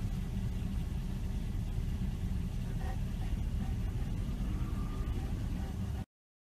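Steady low rumble of a running car heard from inside the cabin, engine and road noise together, cutting off suddenly near the end.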